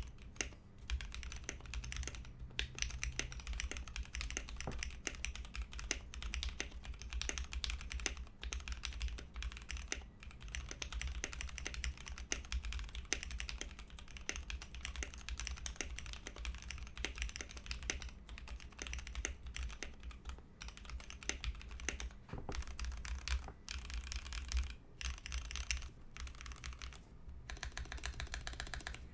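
Continuous fast typing on a custom 60% mechanical keyboard with factory-lubed Gateron Cap Milky Yellow linear switches on an aluminium plate in a stacked acrylic case, PBT keycaps on a thick deskmat: a dense run of keystrokes with a few short pauses. A low hum from the background runs underneath.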